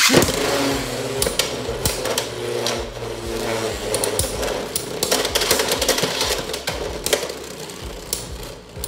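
Two Beyblade X spinning tops launched into a plastic stadium: a sharp burst at the launch, then the tops whirring across the plastic floor with repeated sharp clicks and clatters as they collide with each other and the rail.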